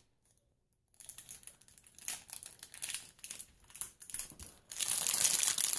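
Plastic wrapping of a package of cheese slices crinkling as it is handled to take out a slice. The crackle is irregular, starts after about a second of silence, and grows louder near the end.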